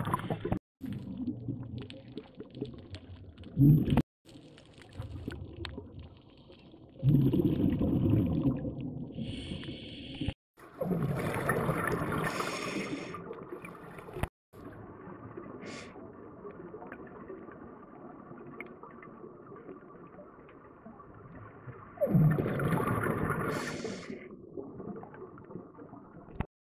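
Underwater scuba sound: a diver's exhaled breath bubbling out of the regulator in gurgling bursts a few seconds apart, with a steady low hiss between them. The sound cuts out briefly several times.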